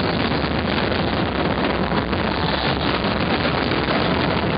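Dense barrage of aerial fireworks shells bursting together, heard as a continuous rumble of overlapping booms and crackle.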